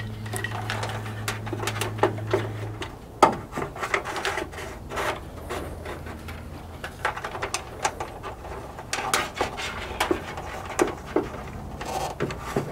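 Wiring being fed up through a hole in a car's hood underside and pulled through by hand: irregular clicks, taps and rubbing of wire and insulation against the sheet metal. A steady low hum sounds for the first few seconds and cuts off suddenly.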